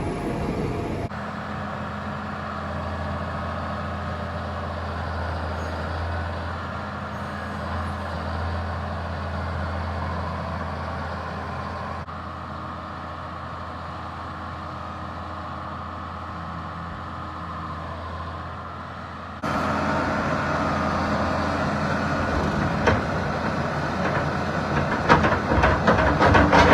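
Farm tractor's diesel engine running steadily, with a low hum, in several cut-together stretches. Music with a beat fades in near the end.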